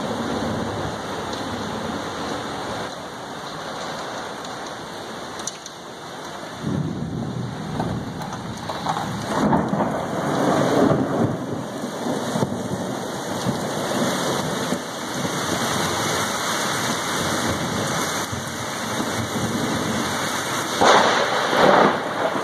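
Heavy rain of a severe thunderstorm falling steadily, with rumbles of thunder swelling and fading, the loudest near the end.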